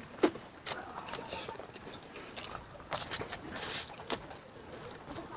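Close-up eating sounds: instant noodles being slurped and chewed, with irregular sharp clicks and short slurps.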